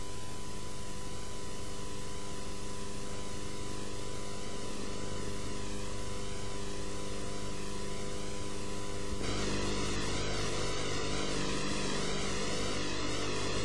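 Steady electrical hum and hiss with a thin constant high tone, the noise floor of an old analogue video soundtrack. About nine seconds in it grows slightly louder and a faint wavering warble joins it.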